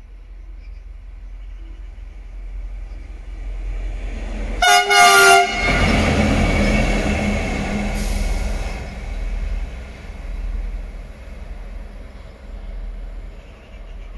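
Renfe Series 319 diesel-electric locomotive running light through a station sounds a short double blast on its horn about five seconds in, a greeting from the driver. Its engine and wheels then pass close and loud, fading as it moves away.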